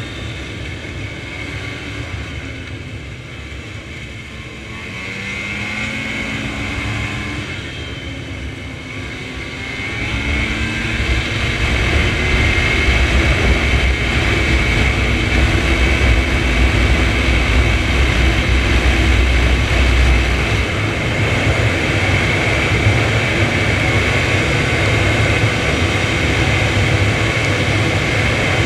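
Snowmobile engine running under way, its pitch rising and falling over the first few seconds. About ten seconds in it gets louder and then holds steady at speed, with a thin high whine above the engine.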